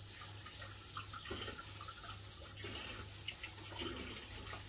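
Kitchen tap running into the sink as a cheese grater is rinsed under it, straight after grating, so the cheese does not dry in its holes.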